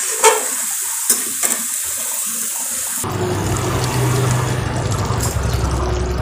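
Chicken sizzling as it is browned in a kadai, stirred with a metal spatula that scrapes and taps the pan a few times. About three seconds in the sound changes to a fuller rushing noise with a low hum underneath.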